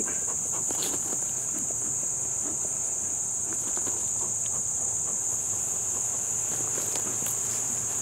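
Steady high-pitched trill of crickets. A few faint puffs from a beekeeper's bellows smoker come through it.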